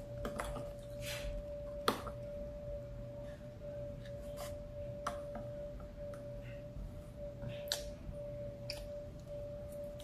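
Eating sounds: a plastic fork clicking and scraping against a disposable bowl and plate, a handful of short sharp clicks with the loudest about two seconds in. A steady faint hum lies underneath.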